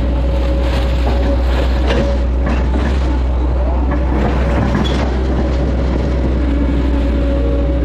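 Hitachi excavator's diesel engine running steadily under digging load, with a steady hum and droning tones, heard from the operator's seat. A few knocks and scrapes come from the bucket working mud in the ditch, mostly a couple of seconds in and again near the middle.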